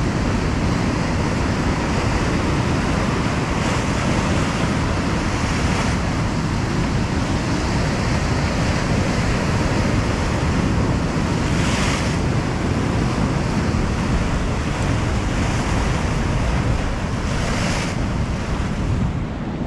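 Ocean surf washing against rocks in a steady rush, with waves breaking more loudly about three times, and wind buffeting the microphone.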